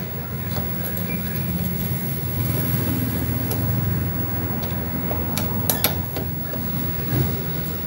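Steady low engine-like rumble, with a few sharp clicks from a screwdriver working screws in a JBL portable speaker's plastic housing, a cluster about two-thirds of the way through and one more near the end.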